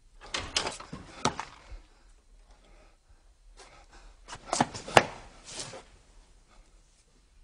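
A wooden door knocking and clattering in two bursts about four seconds apart, the second louder, with its sharpest knock about five seconds in.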